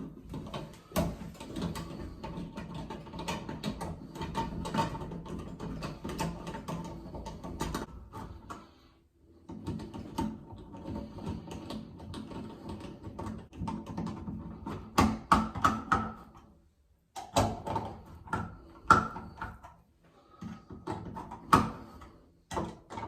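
Screwdriver and metal screws clicking and tapping as the cover plate of a Moen shower valve is screwed back on, with scattered knocks of hand tools and metal trim being handled. The loudest clicks come in a cluster a little past the middle and again near the end.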